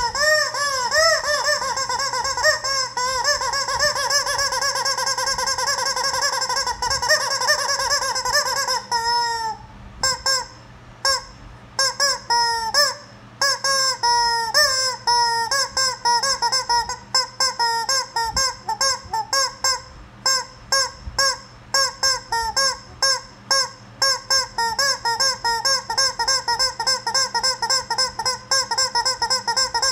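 Rubber squeaky chicken toy squeezed over and over, giving honking squawks. A fast, unbroken run of squawks for the first nine seconds or so, then after a brief pause a long string of separate short squawks in quick succession.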